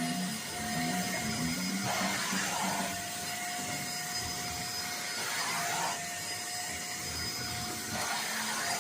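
Oraimo vacuum cleaner running steadily, a motor hum with one held tone over a broad hiss of air.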